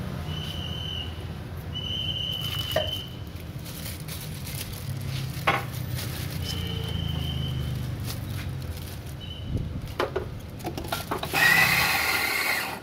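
A steady low hum with a few sharp clinks and four short high-pitched tones, then near the end an electric coffee grinder starts with a loud burst of grinding.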